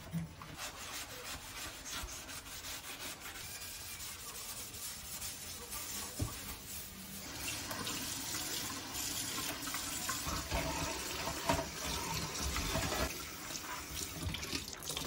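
Sponge scrubbing a stainless steel kitchen sink, then tap water running and splashing into the sink as it is rinsed, louder from about halfway through.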